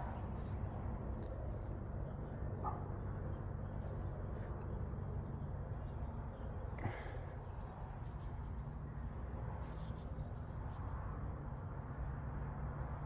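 Quiet background with a steady low hum and a faint, high, steady chirring. About seven seconds in there is one short knock as a hand tool is handled.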